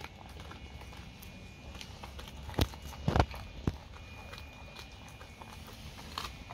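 A dog chewing a raw narrow-barred Spanish mackerel head: scattered small clicks and crunches of teeth on fish bone, with a few loud sharp cracks close together around the middle.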